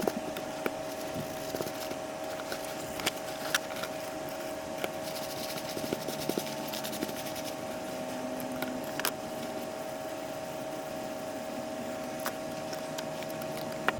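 Small electric sanding tool running steadily with a constant whine, sanding down the drysuit's material around the neck opening, with scattered light ticks as it works the surface.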